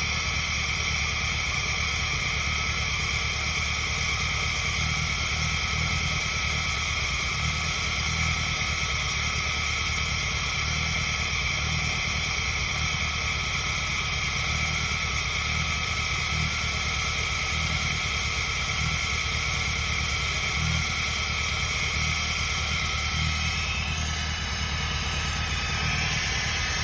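Peugeot 106 engine running steadily at idle, with no revving.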